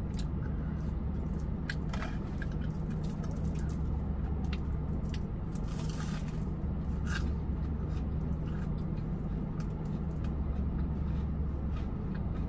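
Close-up mukbang eating sounds: chewing a potato-coated mozzarella corn dog with wet mouth clicks and squishes, and a crunchy bite into the crispy crust about six seconds in. A steady low hum runs underneath.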